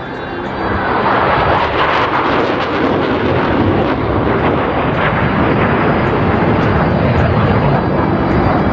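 Jet noise from Blue Angels Boeing F/A-18 Super Hornets flying over: a dense rushing engine sound that swells about a second in and stays loud.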